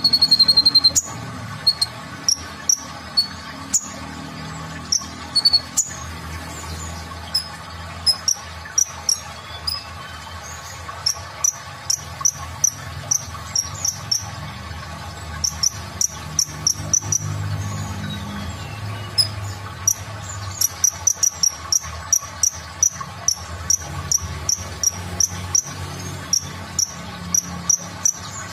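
Male Van Hasselt's sunbird (kolibri ninja) singing: very high, thin, short chips, scattered at first and then in fast ticking runs of several a second from about halfway through, over a steady low hum.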